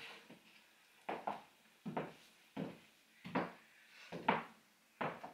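Footsteps on a hard floor at a steady walking pace, about one short knock every two-thirds of a second, starting about a second in.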